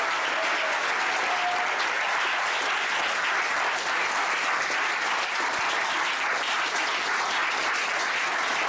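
A large crowd of people clapping together: steady, sustained applause.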